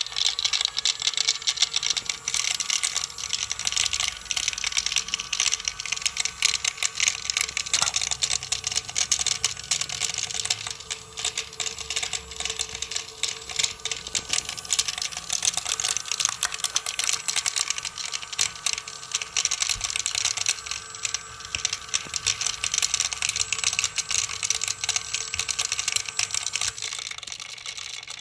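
Dense, rapid crackling and clicking of high-voltage electrical sparking, running on with uneven surges and fading out near the end, over a faint steady whine.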